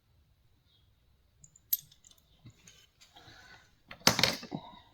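Small metal hand tools being handled and set down on a table: a sharp click about two seconds in, a few light clicks and a short rustle, then a louder clatter of metal near the end.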